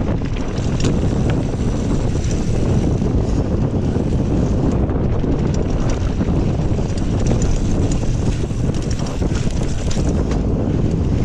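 Wind buffeting a GoPro's microphone as a Kona Honzo ST hardtail mountain bike rolls along dirt singletrack, with scattered ticks and rattles from the bike and its tyres over the trail.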